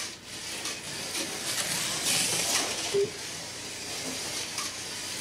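A 1/32 scale slot car running on a wooden track with braided rails: the small electric motor and pickup braids give a high rushing noise that swells as the car comes nearer, with one short beep about three seconds in.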